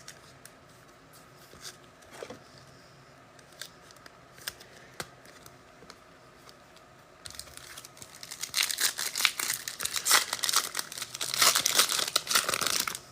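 A trading-card pack's plastic-foil wrapper being torn open and crinkled in the hands, a dense crackle that starts about seven seconds in and lasts to near the end. Before it there are only a few faint taps.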